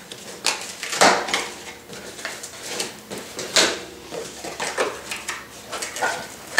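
Cardboard shipping box being opened by hand: flaps pulled apart and cardboard scraping and rustling in a series of short rips and scrapes, loudest about a second in and again about halfway through.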